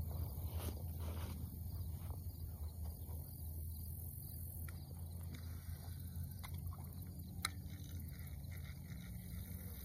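Outdoor waterside ambience: a steady low rumble and a steady high hiss, with a few faint rustles and clicks, the sharpest one about seven and a half seconds in.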